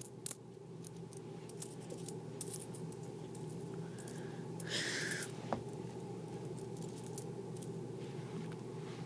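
Wheat pennies clinking against one another as hands push and pick through a pile of them on carpet: scattered light clicks, thickest about halfway through.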